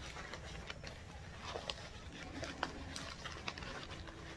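Faint rustling and scattered small ticks of a fabric zippered bag being handled and worked right side out.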